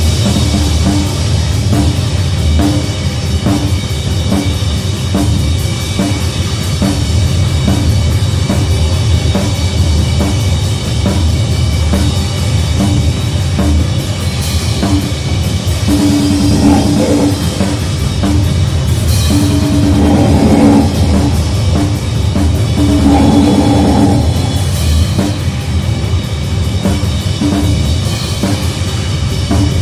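Loud noise music in a grindcore and crust vein: fast, dense drumming under a continuous wall of noise, with a droning pitched tone that keeps cutting in and out and is heaviest past the middle.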